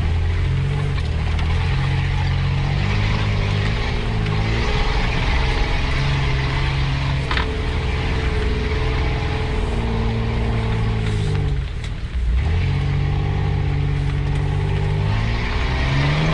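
A 4x4's engine running under changing throttle on a rough dirt trail, the revs rising and falling every few seconds. There is one short drop in the engine sound about three-quarters of the way through.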